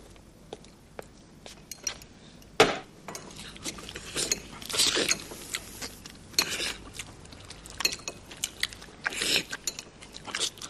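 Forks clinking and scraping against plates as two men eat spaghetti hurriedly, in irregular clatters, with one sharp clatter about two and a half seconds in.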